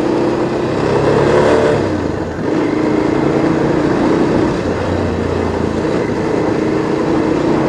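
A Bajaj 220 motorcycle's single-cylinder engine running under way on a rough dirt track. Its note rises about a second in, dips briefly, then holds steady.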